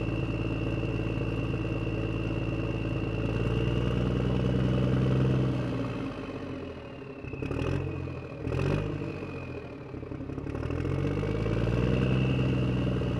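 Electric motors and gearing of radio-controlled Huina construction toys running, a steady mechanical hum with a high whine. It falls away about seven seconds in, with two short knocks, then picks up again near the end.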